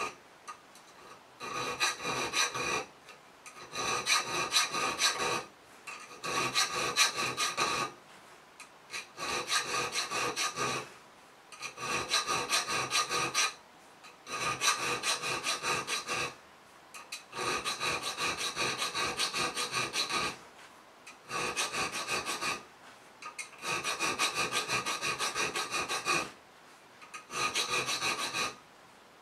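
Small needle file rasping across the spine of a steel knife blade clamped in a bench vise, cutting decorative notches. About ten runs of quick, short strokes, each lasting a couple of seconds with brief pauses between, and the blade rings under each run.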